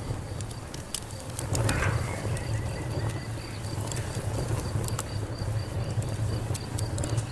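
Fire crackling, with frequent sharp pops and snaps over a steady low rumble.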